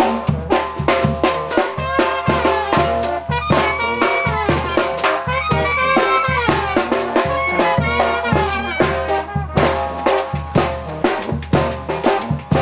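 Live brass band playing dance music: brass instruments carry the melody over a steady, regular beat on bass drum and cymbal.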